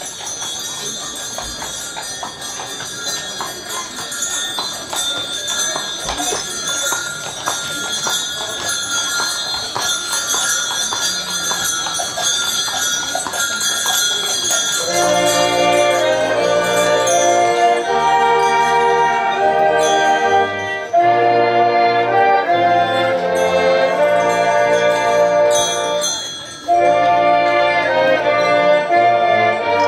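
Bells jingling irregularly over a steady high ringing. About halfway through, music with slow, sustained chords and a bass line comes in and carries on, breaking off briefly a few seconds before the end.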